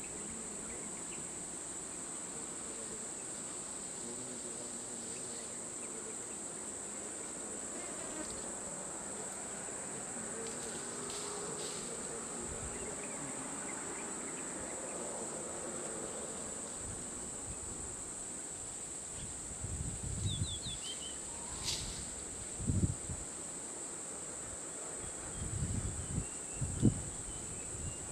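Steady, high-pitched drone of insects in the roadside scrub. In the last third, a few dull low thumps cut in; they are the loudest sounds.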